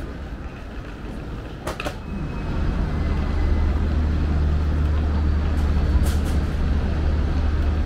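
Road traffic below, dominated by a loud, steady low drone from a heavy vehicle's diesel engine that starts about two seconds in. Two short sharp hisses or clatters come about two and six seconds in.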